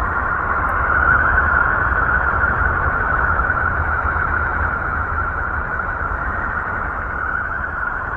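Steady, unbroken whooshing hiss over a low rumble, presented as the sound of the planet Mercury: a space sonification, electromagnetic wave data recorded in space and converted into audible sound.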